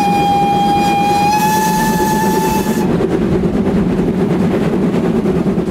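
Steam locomotive whistle blowing one long steady note that stops about three seconds in, over a steady low rumble from the locomotive that carries on after it.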